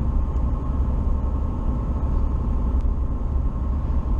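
Car driving along a highway, heard from inside the cabin: a steady low rumble of road and engine noise.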